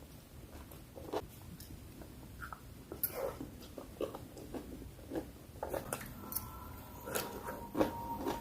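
Close-miked chewing of bakso meatballs, with irregular wet clicks and smacks of the mouth.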